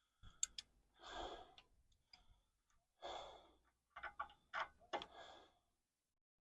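A person breathing out heavily three times, about two seconds apart, while straining at a job. Between the breaths come a few faint sharp clicks, clustered about four to five seconds in, from a ratchet wrench being worked.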